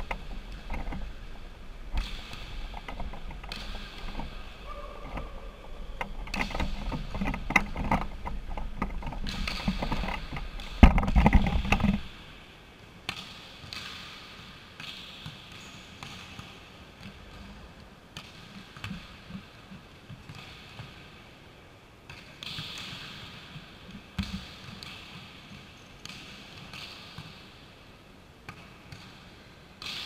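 Volleyballs being hit and bouncing on a sports-hall floor, scattered sharp strikes every second or two. For about the first twelve seconds a low rumble of the camera being handled lies under them, with a loud knock near the end of it.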